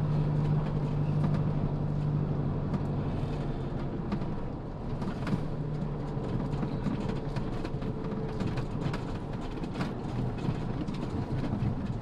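Motorhome driving slowly on a concrete road, heard from inside the cab: a steady low engine hum under tyre noise, with small rattles and knocks. The hum eases after about four seconds.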